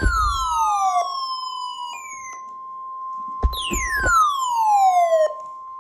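NOAA Weather Radio warning alarm test: receivers sound the steady 1050 Hz alert tone. A second radio's own alarm adds falling, siren-like sweeps over it: one fading out about a second in, a short chirp near two seconds, and a long downward sweep from about three and a half seconds to five.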